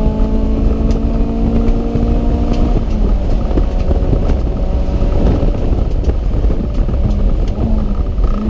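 Car engine at full throttle, its pitch climbing steadily, then the throttle closes about three seconds in and the steady note gives way to rough rumbling noise with short pitch changes.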